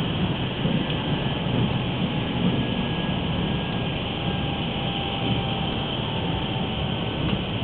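Steady running noise of a train heard from inside the passenger car: a low rumble of the wheels on the rails, with a faint thin whine above it.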